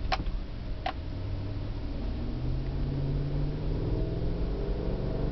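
A Chevy Tahoe's 5.3-litre V8 heard from inside the cabin while the truck accelerates. The engine note climbs steadily in pitch from about two seconds in, with two light clicks near the start.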